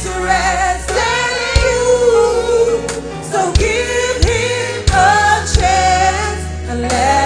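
Church choir singing a gospel song, men's and women's voices together, over a band accompaniment with a steady bass and regular drum hits.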